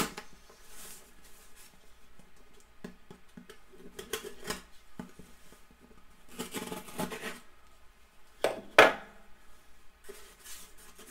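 Cardboard boxes being handled and opened on a table: scattered rustles, scrapes and light knocks, with a sharper knock near the end.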